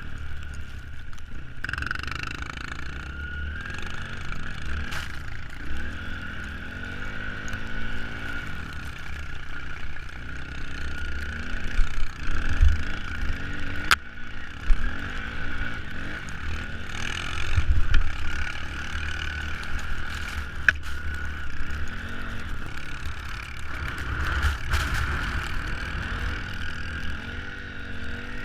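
Small off-road vehicle engine running while riding, its pitch rising and falling with the throttle over a steady low rumble of wind and bumps on the microphone.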